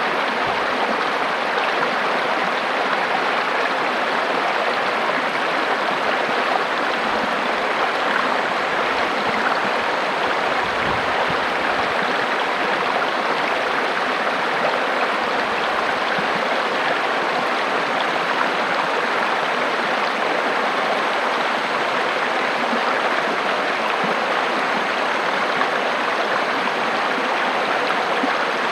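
River water running and splashing over rocks, a steady rushing flow.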